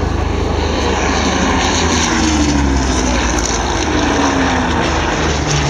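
Propeller aircraft piston engines running loud and steady, the engine note falling slowly in pitch a couple of times as an aircraft passes.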